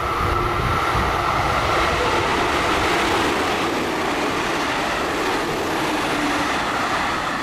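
JR Central 313 series electric train passing the platform at speed: a steady rush of wheel and rail noise with a steady high whine.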